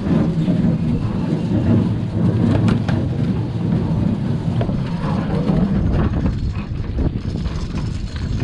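Boat engine running at a steady low rumble, with wind buffeting the microphone. A few light knocks come about two and a half to three seconds in.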